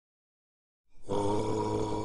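After about a second of silence, a deep held chanted drone begins: one low steady note with many overtones, part of the intro's opening music.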